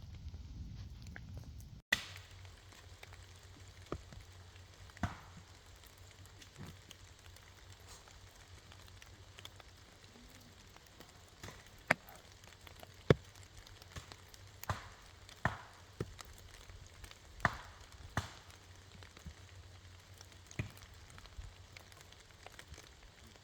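Wood fire crackling: sharp, irregularly spaced pops and snaps over a low steady background.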